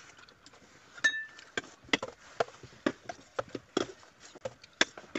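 A metal spoon clinking against a food dish, one brief ringing clink about a second in, among a string of small clicks and taps of eating close at hand.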